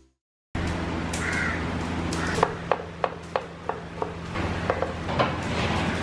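A kitchen knife chopping on a wooden cutting board, about ten quick knocks in a row, over a steady low hum. A crow caws once about a second in.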